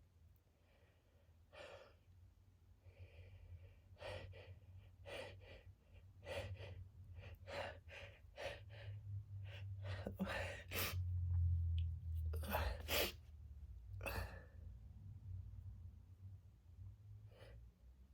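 A woman's stuck-sneeze build-up: a run of short, hitching breath intakes, growing louder, with two stronger bursts past the middle, as the sneeze keeps failing to come out.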